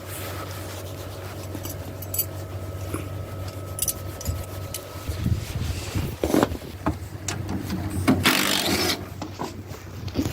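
Hand tools and sockets clinking and scraping against metal, with a louder rasping scrape about eight seconds in.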